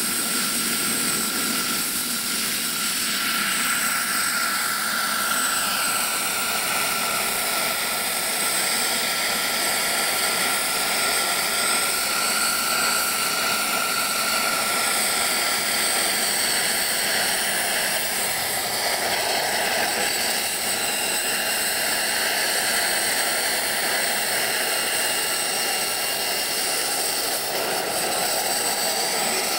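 Turbine-powered RC model helicopter running and flying, its small gas-turbine engine giving a steady high whine. A few seconds in, one tone slides down in pitch, and it wavers up and down after that as the helicopter moves about.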